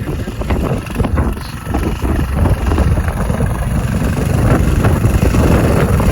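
Earthquake Versa front-tine tiller's 99cc four-stroke Viper engine running, getting louder about two and a half seconds in.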